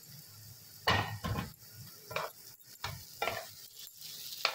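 A spoon stirring thick semolina-and-jaggery halwa in a metal pot, scraping the bottom in about six irregular strokes. The halwa is being roasted and kept moving so it does not stick while the last of the water cooks off.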